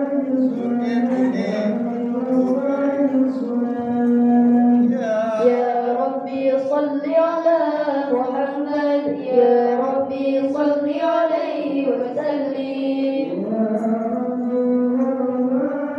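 A hadroh group singing a sholawat, voices carrying long, drawn-out melodic lines that glide from note to note.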